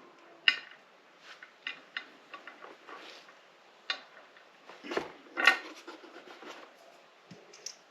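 Scattered light clicks and clinks of metal bolts being handled and pushed through the holes in a TV stand's base, with the sharpest knocks about half a second in and around five seconds in.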